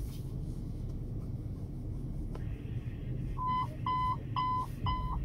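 A steady low rumble, then from about three and a half seconds in, a string of short, evenly spaced beeps about twice a second: a fire dispatch alert tone that comes just before the radio dispatch call.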